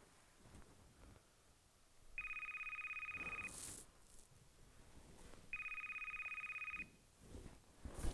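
A phone ringing twice with an electronic trilling ring, each ring a little over a second long, an incoming call about to be answered.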